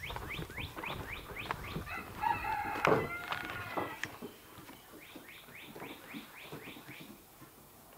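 A rooster crows once, about two seconds in. Around it a bird gives quick rising chirps, several a second, at the start and again near the end.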